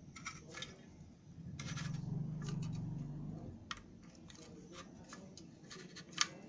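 Hands seating a butane gas canister into a portable camping stove's connector: scraping and rubbing of metal against metal and plastic, a louder low rubbing stretch in the middle, and a few small clicks, the sharpest near the end.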